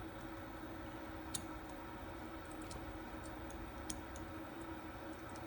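A few faint, sharp clicks of small RC car parts being handled, over a steady low hum with a few faint steady tones.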